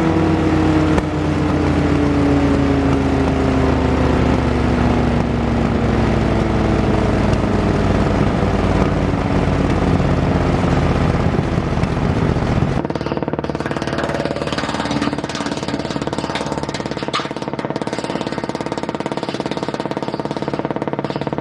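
The wood chipper's 18 hp Briggs & Stratton engine running loud, its pitch slowly sagging over the first ten seconds. About 13 seconds in the sound changes abruptly to a lighter, steadier run.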